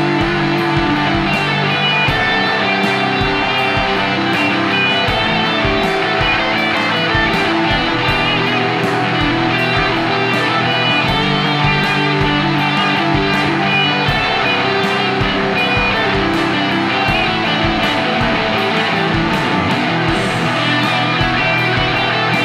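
Background music, guitar-led with a steady beat.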